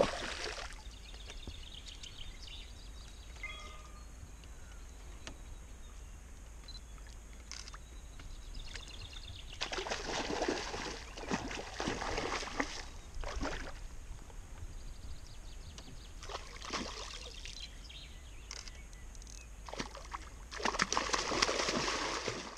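A hooked brown trout thrashing at the surface beside a canoe: irregular bursts of splashing water, with the biggest flurries about ten seconds in and again near the end, over a low steady rumble.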